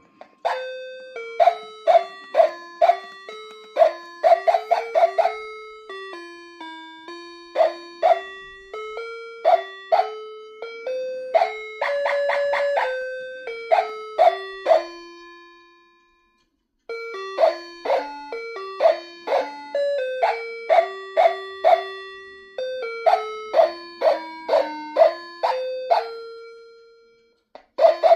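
A chiming, bell-like melody of struck notes that ring and fade away, breaking off for about a second just past halfway and then starting again.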